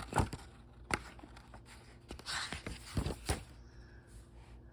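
Paper pages of a picture book being turned and handled: a soft rustle a little past two seconds in, with a few light taps and knocks around it.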